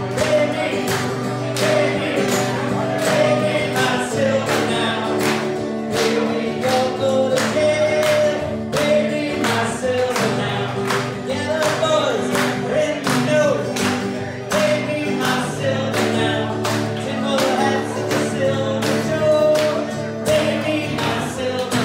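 Live band music: a singer over strummed acoustic guitar, with a steady beat about twice a second.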